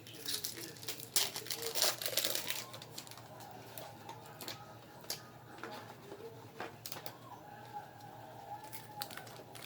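Trading-card pack wrappers crinkling and cards being handled, in scattered short crackles and clicks, busiest in the first couple of seconds.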